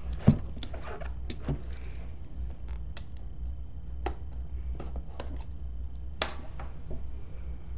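Cardboard box being opened and handled: scattered light taps and clicks, with a knock just after the start and a sharp click about six seconds in.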